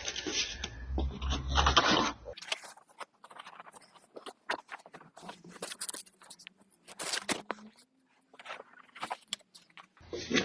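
Old automotive carpet being pulled up off the car's floor pan: scattered rough scrapes, rustles and clicks as the carpet is tugged loose and dragged.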